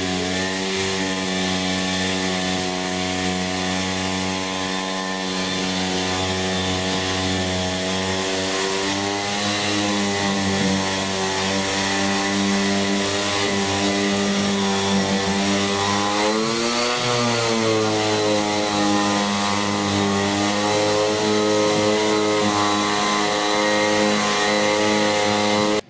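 Random orbital sander with an 80-grit disc running continuously against oak, together with its attached dust extractor; a steady motor whine whose pitch briefly rises and falls about two-thirds of the way in, stopping abruptly at the end.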